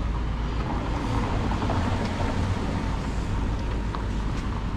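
Steady outdoor background noise: an even hiss with a strong low rumble underneath.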